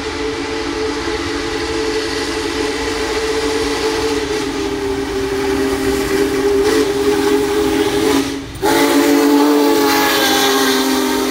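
Union Pacific Big Boy No. 4014 steam locomotive's chime whistle blown in one long, steady chord as the engine comes through at speed, over the noise of the passing train. It breaks off briefly about eight and a half seconds in, then sounds again, a little louder.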